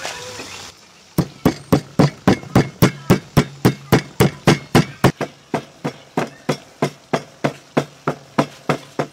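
Stone pestle pounding peppercorns in a stone mortar: a steady rhythm of sharp knocks, about three to four a second, starting about a second in.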